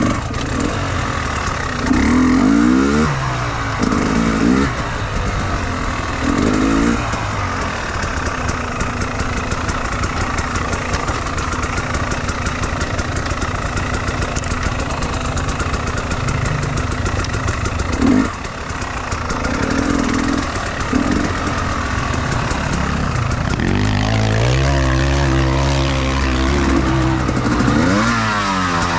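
Enduro motorcycle engine revving up and down under throttle, in short bursts every few seconds and a longer rise and fall near the end, over a steady rushing noise.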